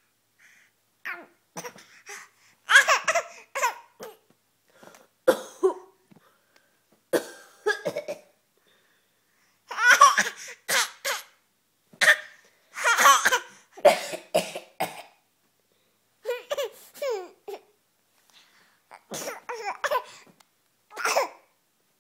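A woman's fake coughs alternate with a young child's giggling laughter in reply. They come in short bursts separated by pauses.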